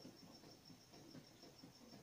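Near silence: faint room tone with a soft, high-pitched pulsing, about six pulses a second.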